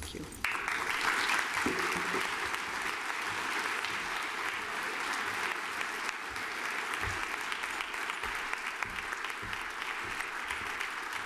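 Large audience applauding steadily, the clapping starting suddenly about half a second in.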